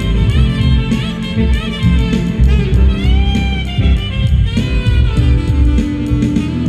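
Saxophone playing a jazzy melody over a backing track with bass and drums, holding one long, slightly wavering note about three seconds in.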